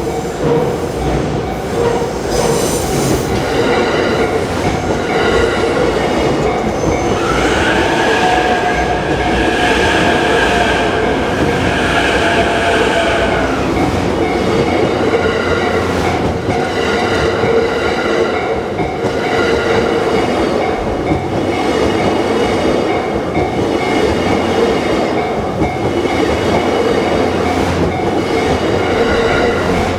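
A train runs past a level crossing, its rail noise loud and steady, while the crossing's warning bell rings on throughout. A high-pitched tone joins in for about six seconds, about a quarter of the way in.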